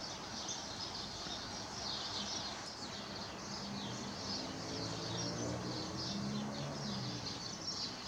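Outdoor ambience of many small birds chirping, with a faint low hum of distant aircraft engines that swells a little in the middle.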